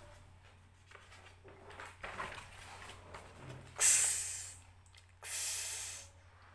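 A woman's voice giving two drawn-out voiceless hisses, the 'ks' phonic sound of the letter X sounded out in a children's phonics lesson, about 4 and 5 seconds in, under a faint steady mains hum.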